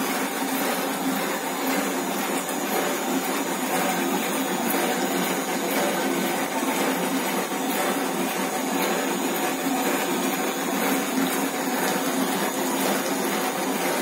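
Homemade mini dishwasher running: a 12-volt submersible pump drives a spinning garden-sprinkler head that sprays water over dishes inside a closed plastic box. It makes a steady hiss of spraying water mixed with the pump's motor noise.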